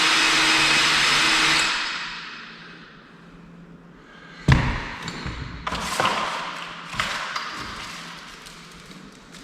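Electric drill running steadily, then released about a second and a half in and winding down. A sharp knock follows a few seconds later, then several lighter knocks and clatter.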